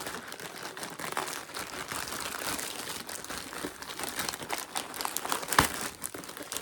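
Packaging being handled and opened by hand, crinkling and rustling continuously, with one sharp snap about five and a half seconds in.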